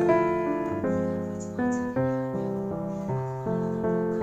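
Background music led by piano, with chords changing about every half second.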